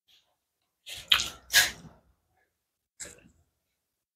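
Close-miked mouth sounds of someone eating: a quick run of three wet smacks and chews about a second in, then a fainter one about three seconds in.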